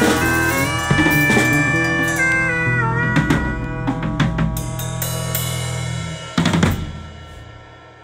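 A small band of electric bass, trombone and drum kit plays the closing bars of a tune: the trombone holds long notes that slide and step down over a steady bass line while the drums play along. A final loud hit on the kit about six and a half seconds in rings out and fades, ending the piece.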